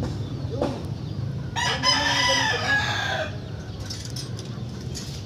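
A rooster crows once, one long call starting about a second and a half in, over a steady low hum.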